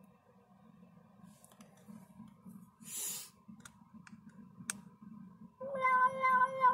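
A few faint clicks, then about five and a half seconds in a cat starts a long, drawn-out yowl, played through a tablet's speaker.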